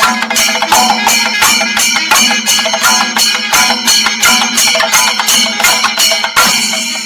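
Singari melam ensemble of chenda drums and hand cymbals playing a fast, even beat, about four strokes a second, with a brief change in the pattern near the end.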